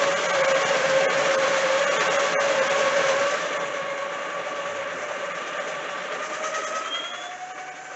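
Breville conical burr grinder grinding a single dose of coffee beans: a steady motor whine with the crunch of grinding. About three and a half seconds in it turns quieter and the whine rises a little, as the last beans pass through and the burrs begin running nearly empty.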